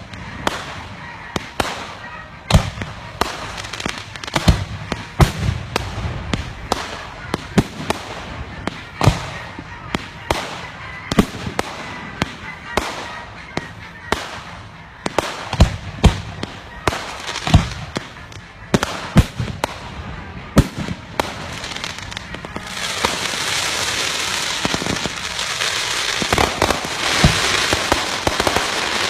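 Aerial fireworks display: a rapid, irregular string of shell bursts, sharp cracks and deeper booms. From about three-quarters of the way in, a dense hissing crackle builds up and runs beneath the bursts.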